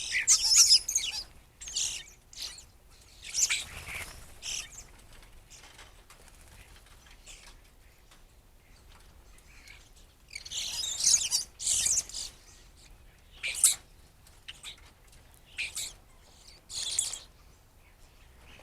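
Blackbirds at a feeder giving short, high chirping calls in scattered bursts, the busiest right at the start and again about ten to twelve seconds in.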